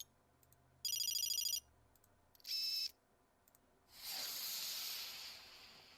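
Stock 'zoom' sound effects: two short electronic ringing trills and a brief chirp, then a hissing whoosh that swells and fades away.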